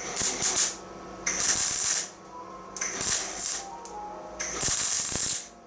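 Welder laying short runs of weld on a car's steel floor panel: four crackling bursts of about a second each, with brief pauses between them.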